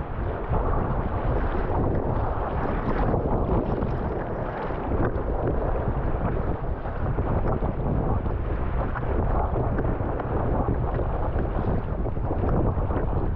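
Gale-force wind buffeting the microphone, with waves and water splashing around a sea kayak.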